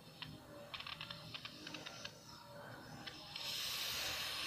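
A few light clicks, then about a second of steady hiss from an aerosol anti-rust spray can sprayed through its straw near the end.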